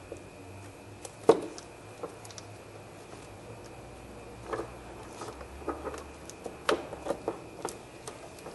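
Hand work on a car battery's hold-down clamp: scattered metal-and-plastic knocks and clinks as the clamp is worked free. There is one sharp knock about a second in, then a cluster of smaller clicks and knocks in the second half.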